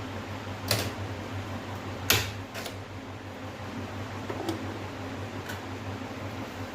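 A handful of sharp clicks and knocks as plastic parts of an LED TV's casing are handled and pulled off, the loudest about two seconds in, over a steady low hum.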